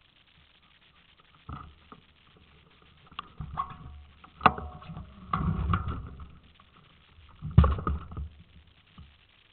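Knocks, thumps and rattles from a bicycle being shifted and handled, picked up through a camera clamped to its front forks. There is a single knock about one and a half seconds in, a cluster of knocks and clatter in the middle, and the loudest thump near the end.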